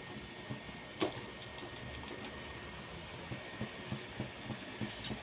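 Low, steady kitchen background noise around a pot on the stove, with one sharp click about a second in, a few light ticks after it, and a few more ticks near the end.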